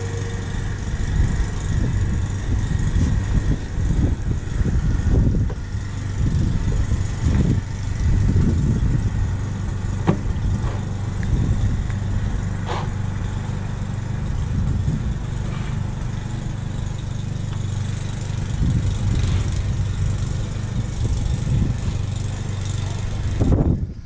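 Wind gusting against the microphone in a snowstorm, an uneven rumble over a steady low hum, with a few faint scrapes of a snow shovel.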